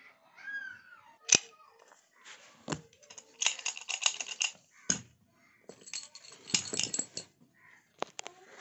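A small steel padlock and a bunch of keys being handled and picked up off a concrete floor: a sharp metal click about a second in, then two bursts of clinking and jangling, and a few more clicks near the end.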